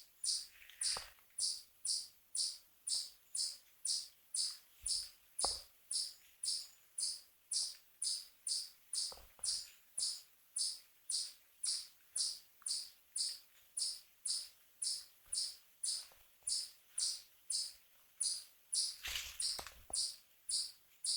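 An insect chirping steadily in a high, even rhythm of about two chirps a second, with a few faint knocks.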